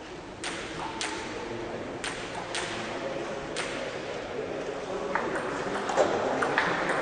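Table tennis rally: the ball clicking sharply off the paddles and the table, a single knock every half second to a second.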